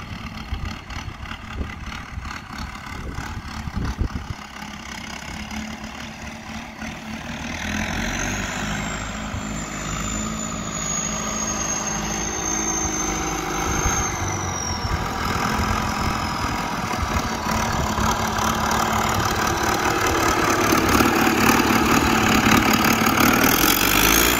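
Allis-Chalmers D17 six-cylinder diesel tractor engine running as the tractor is driven along a gravel road, getting steadily louder as it comes closer. A thin high whine rises in about a third of the way through, holds for several seconds and fades.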